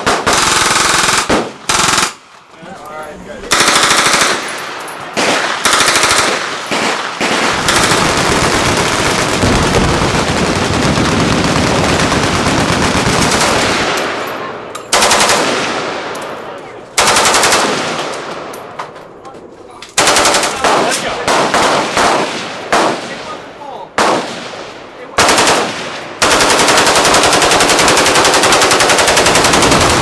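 Full-automatic gunfire from machine guns and submachine guns. It comes in repeated bursts, some short and some several seconds long, with brief pauses between them, and sustained continuous fire near the end.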